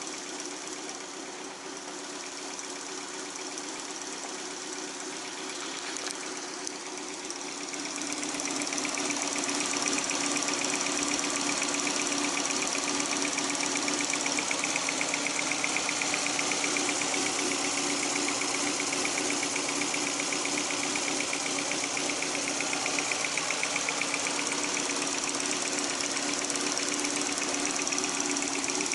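Toyota 4A-G twin-cam inline-four with side-draft carburetors idling steadily in an open engine bay; it gets louder about eight seconds in and stays even after that.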